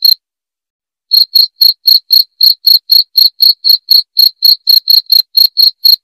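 Cricket chirping loudly and evenly, about four short shrill chirps a second. The chirping cuts out completely for about a second at the start, then resumes at the same steady rate.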